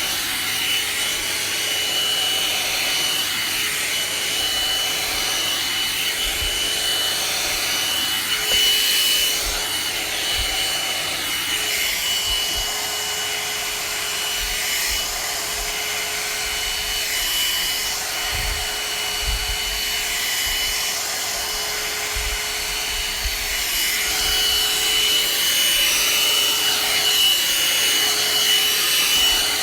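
One-step hot-air brush (hair dryer with a volumizer brush) running steadily, rushing air with a steady high whine, while it is worked through the hair to dry and volumize it.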